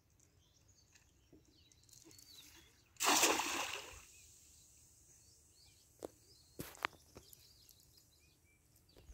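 A cast net landing on pond water with a sudden splash about three seconds in, fading over about a second. Faint bird chirps throughout, and a few short sharp clicks later.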